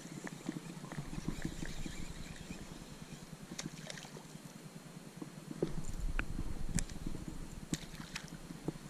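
Fast rhythmic ticking and rustling from rod, reel and kayak handling, with a few sharp clicks and knocks. A low rumble comes in about halfway, and water splashes at the kayak's bow near the end.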